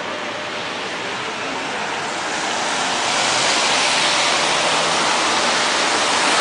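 A steady rushing noise with no distinct strokes, swelling louder about two to three seconds in.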